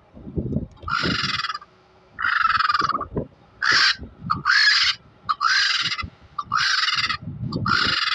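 Vulture calling: a series of about seven harsh, hissing squawks, each lasting about half a second, coming roughly once a second.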